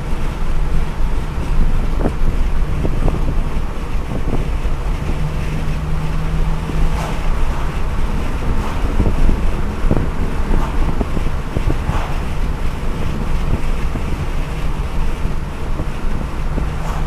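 Wind buffeting the microphone held at the side of a Rover 25 GTi moving at road speed, over a steady low rumble of engine and tyre noise.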